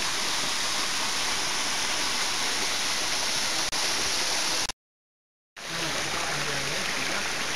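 Steady rush of creek water running over rocks, an even hiss. It dips briefly, then cuts out completely for under a second just past halfway before resuming.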